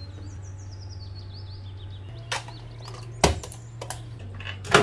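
A few sharp clicks and clinks of a metal spoon and plate while margarine is spooned onto grated chocolate and the plate is handled, over a low steady hum. Faint short high chirps in the first second or so, like a small bird.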